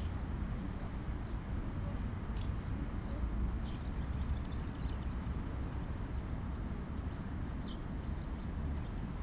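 Outdoor ambience: a steady low rumble with scattered faint, short high chirps.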